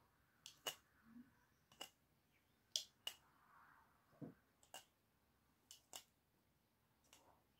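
About a dozen faint, sharp clicks and taps, several in quick pairs, with a soft low thump about four seconds in.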